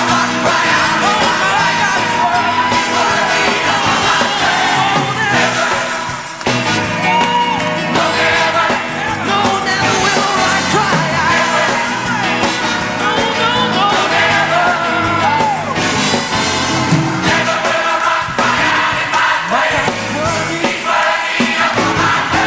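Live gospel music: a singer with a band and congregation voices, loud and continuous.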